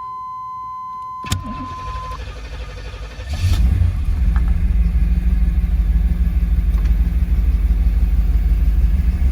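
Chevrolet Camaro starting after sitting unused for a week or two: a steady warning chime tone, then a click about a second in as the starter engages. The starter cranks for about two seconds, then the engine catches and settles into a loud, steady idle.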